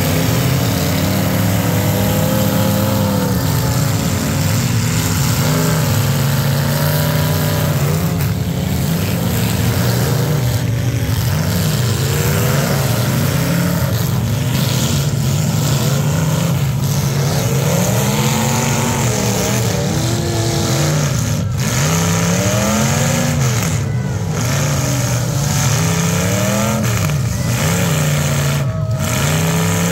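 Several demolition derby car engines running and revving over one another, their pitch rising and falling again and again, more often in the second half.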